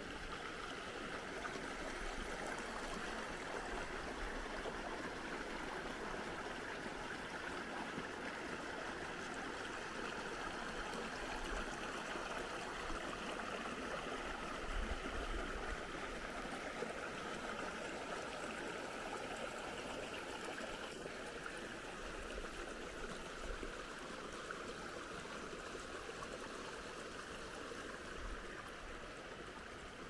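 Small rocky creek running over stones: a steady rushing and trickling of water, with a low rumble now and then.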